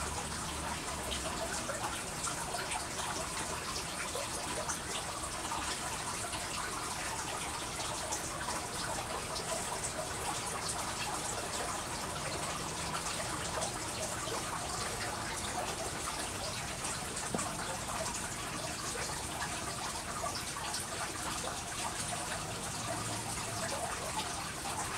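Steady trickling and dripping of running water, an even splashy hiss that holds level throughout.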